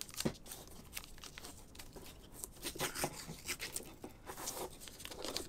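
Roll of white masking tape being peeled off and pressed down along the edge of watercolour paper: irregular crackling and tearing of the tape unpeeling, with light rubbing and ticks as fingers smooth it onto the paper.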